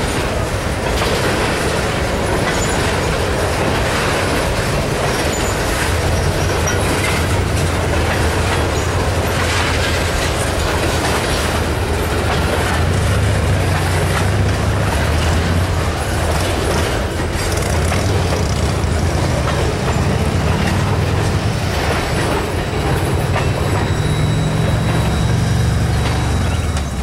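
Freight cars of a Maryland Midland train rolling steadily past close by, wheels clacking over the rail joints. A deeper rumble builds in from about six seconds in.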